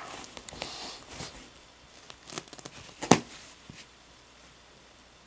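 Doberman puppy rolling and scuffling on carpet: soft rustles and scrapes, with one sharp knock about three seconds in.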